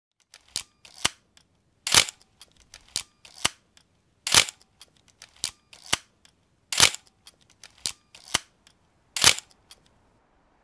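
A series of sharp clicks. The loudest come about every two and a half seconds, with fainter clicks in between, and they stop shortly before the end.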